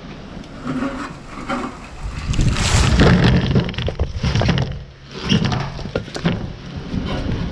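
A wheelbarrow load of split birch firewood being dumped: the barrow rattles as it is tipped, then from about two seconds in the pieces slide and tumble out, knocking against the barrow and each other in a dense clatter that tails off near the end.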